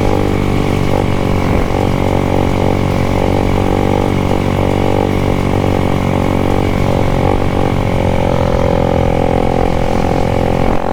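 Motorcycle engine running at a steady, fairly constant speed while the bike is ridden.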